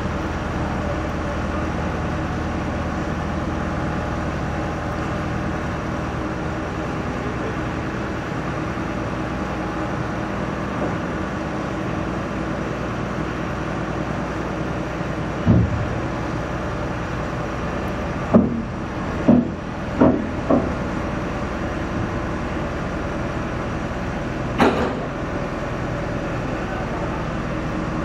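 Steady drone of a heavy truck's diesel engine idling, with sharp knocks from work on the low-loader trailer carrying the tram: one about halfway through, four in quick succession a few seconds later, and one more near the end.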